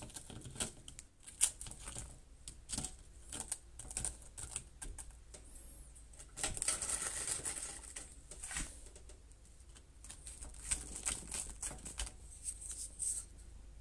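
Light, irregular clicks and taps of wooden chopsticks against a metal wire rack and a bowl as fried croquettes and fish fry are picked up and set down, with a short scraping rustle a little past the middle.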